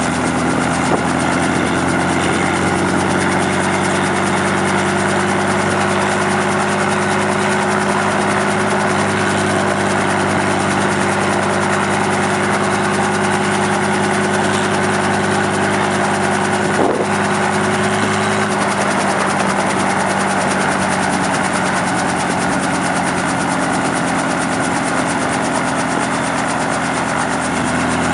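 Helicopter running steadily, an even engine and rotor hum with one short knock about two thirds of the way through.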